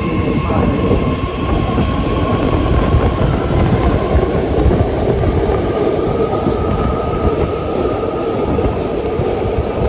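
BART Fleet of the Future train running on the track after its doors have closed: a steady rail rumble and wheel noise under a thin whine that rises a little in pitch about halfway through.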